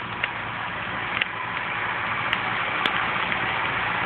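David Brown/Case loader tractor's engine running steadily, slowly growing louder under a steady rushing hiss, with a few scattered sharp crackles.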